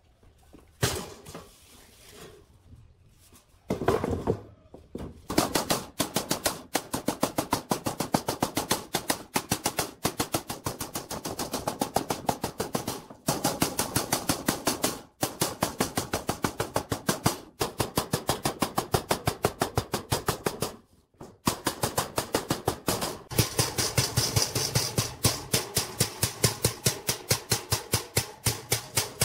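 Hand hammer striking the steel mesh grille of an air compressor held over a steel post, several blows a second in a steady run. The run stops for short pauses a few times.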